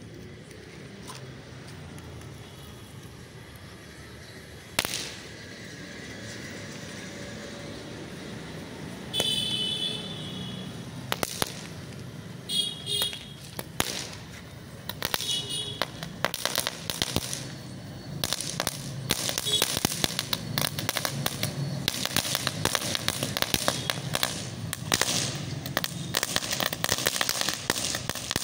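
Ground firework spraying sparks after its fuse is lit: a sharp crack about five seconds in, scattered pops, then from about halfway on a dense, continuous crackling.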